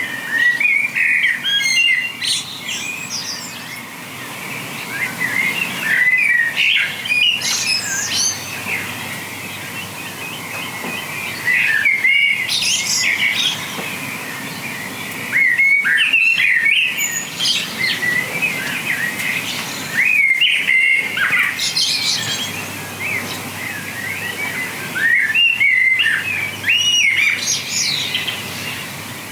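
A songbird singing close by: loud phrases of high chirps and trills, repeating every four to five seconds.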